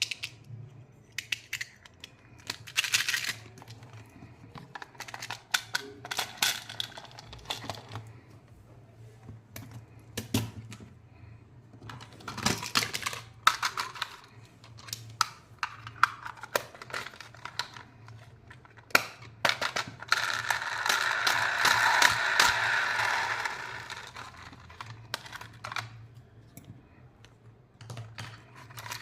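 Candy packaging being handled and opened by hand: scattered small plastic clicks and taps, then a few seconds of steady crinkling and rustling of wrapper about two-thirds of the way through.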